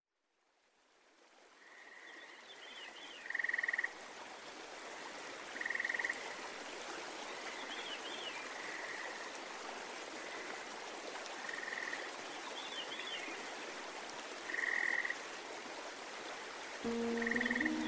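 A nature-sound track fading in: a steady watery hiss with short trilled animal calls repeating every few seconds, the loudest sounds, and fainter chirps between them. Music comes in near the end.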